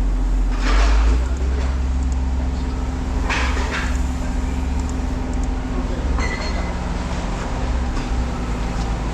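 A vehicle engine idling with a steady low rumble. Scrap metal scrapes twice as it is handled, about a second in and again about three and a half seconds in.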